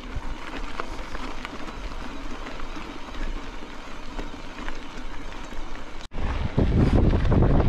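Gritty crackling of mountain e-bike tyres rolling over a loose gravel track, full of small ticks. About six seconds in the sound cuts off suddenly, and loud wind buffeting on the microphone follows.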